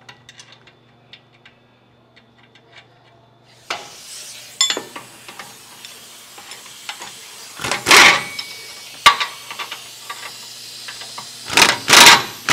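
Faint small metal clicks of a nut and bolt being handled, then a hiss comes up about four seconds in. Short bursts of an impact wrench follow, one a little past the middle and two near the end, as it tries to run a nut onto a steering rack mounting bolt in a spot it doesn't fit.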